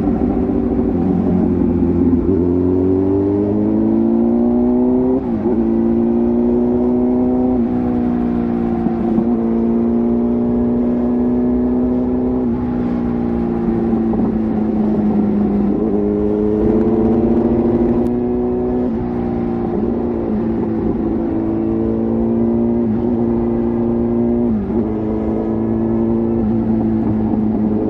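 Kawasaki ZX-10R's inline-four exhaust while riding: the revs climb and then drop sharply about six times as gears change, with stretches held steady in between.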